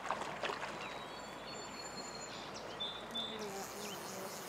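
Steady rush of creek water with songbirds whistling and chirping over it, the bird notes clearest from about a second in; a few soft clicks at the start.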